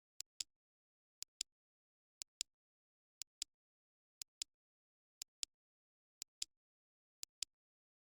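Clock ticking: a pair of sharp clicks once a second, a tick followed about a fifth of a second later by a louder tock, with dead silence between pairs.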